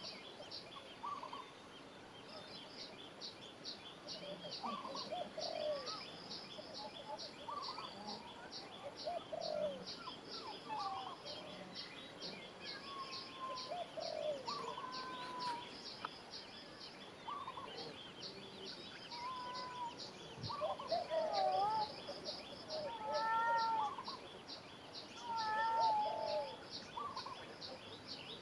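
Outdoor bird calls: many short, bending calls, busiest and loudest in the second half, over a high, thin chirp repeating steadily about two to three times a second.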